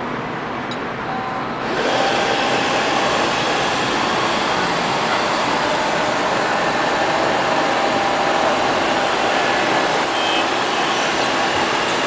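ILIFE LL-306 (X500) robot vacuum's suction fan and brushes starting up just under two seconds in, then running steadily with a hiss and a steady whine.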